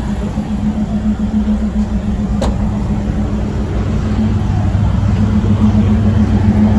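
Passenger train running, heard from inside a carriage: a loud, steady low drone and rumble, with one sharp click about two and a half seconds in.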